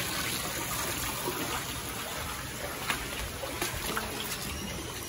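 Steady trickling, running water, with a few faint ticks.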